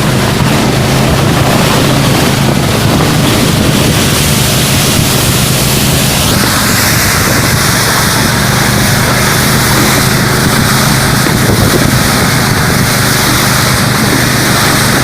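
Taiga 600 snowmobile engine running steadily under way, with wind buffeting the microphone. About six seconds in, a steady high whine joins the engine and holds.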